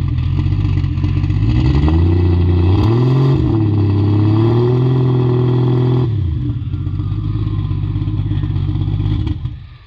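Turbocharged 2JZ-GTE straight-six engine idling, then revved: the pitch climbs about a second and a half in, is held up with a brief dip, and drops back to idle about six seconds in before the sound cuts off near the end.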